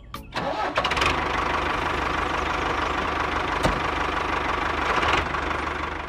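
A motor starts up and runs steadily, engine-like, then dies away near the end.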